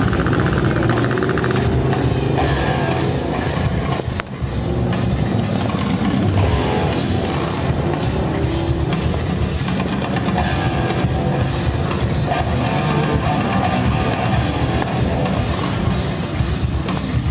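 Loud rock music: a drum kit playing a steady driving beat, with electric guitar.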